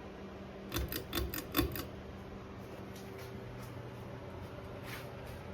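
A quick run of about six clicks as a Concord Madison ceiling fan is switched on. Its motor then starts running with a faint, steady low hum.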